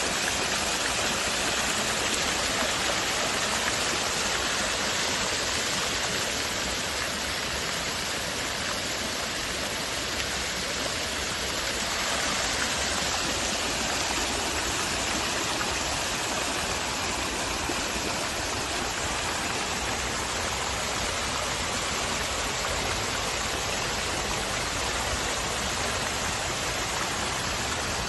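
Many jets of a plaza water fountain spraying up and splashing back down into a shallow basin: a steady, dense rush of falling water.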